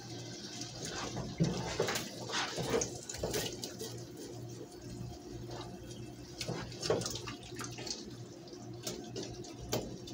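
Spatula stirring a wet beef and tomato stew in a pot: soft squelching with irregular scrapes and taps against the pot, over a steady low hum.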